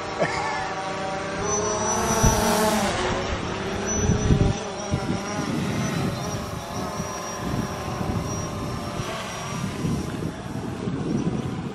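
Quadcopter drone flying overhead, its propellers buzzing with a pitch that wavers in the first few seconds, over a thin steady high whine.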